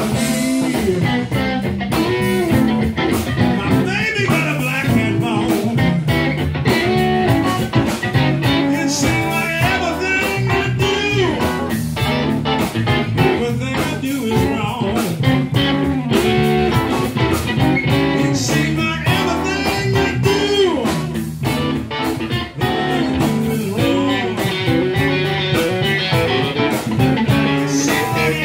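Live electric blues band playing: electric guitar lines with bending notes, over bass guitar and drum kit.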